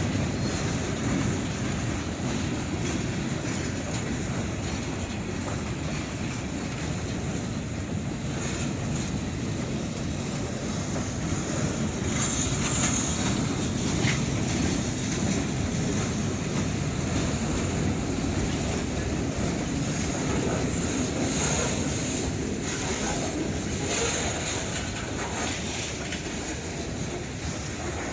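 Freight cars of a long train rolling past steadily, wheels running on the rails with a broad, even rumble.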